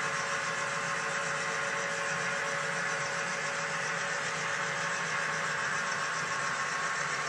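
HO scale model train running on the layout: a steady engine-like hum with a few held tones, unchanging throughout.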